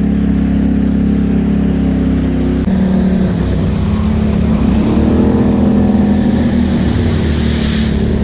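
ATV engine running steadily as the quad pushes through flooded trail, with water splashing and spraying off the front. The engine note changes abruptly about a third of the way in, and the hiss of spray swells toward the end.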